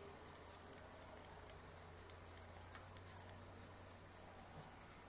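Faint, quick clicking of a socket ratchet wrench being worked on a bolt on a diesel engine's water outlet housing, over a faint low hum.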